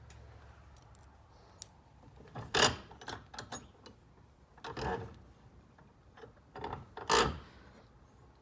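Clunks and rattles of small hard objects being handled, with three louder knocks spread a second or two apart among lighter clicks.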